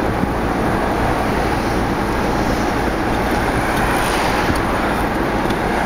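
Steady road and engine noise of a car driving along a street.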